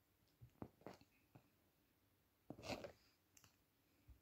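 Faint clicks and a brief rustle of a kitten's claws and paws scrabbling on fabric sofa cushions: a few sharp ticks in the first second and a half, a short scuffle a little before three seconds in, and another tick near the end.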